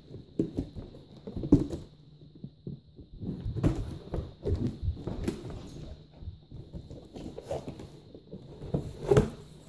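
Hands handling and pulling open a cardboard box: irregular rustling, scraping and knocks on the cardboard, with a louder knock about a second and a half in and another near the end.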